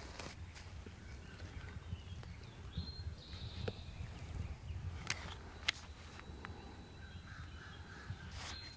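Faint woodland ambience: birds calling, with a few sharp clicks or snaps and a low steady rumble underneath.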